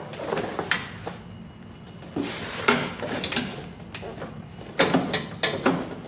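Metal window regulator and motor assembly knocking and scraping against the inside of a car door as it is worked loose and maneuvered out, with a few sharp clunks.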